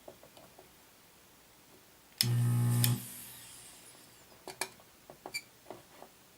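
A powered solder sucker's vacuum pump buzzes for under a second as it draws solder off a capacitor's leads on a circuit board. It is followed by a series of light clicks and taps.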